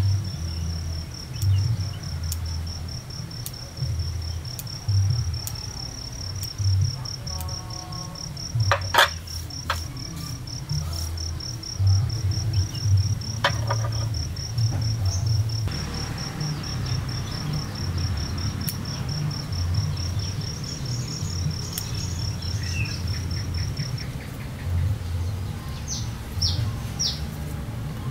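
An insect trills steadily in a high, evenly pulsed tone that stops about four seconds before the end, over a low fluctuating rumble. A few sharp snips of pruning scissors come in the middle, and a bird gives two quick chirps near the end.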